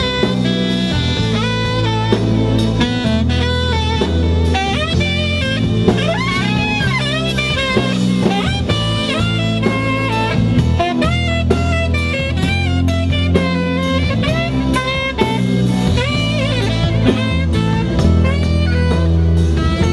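Live band playing a saxophone solo over electric bass and drum kit, the saxophone bending its pitch up and down.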